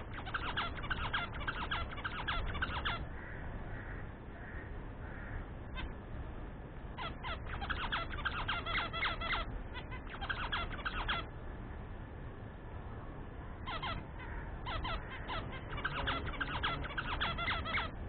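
Budgerigars chattering: runs of quick, high chirps lasting one to three seconds, with short pauses between them.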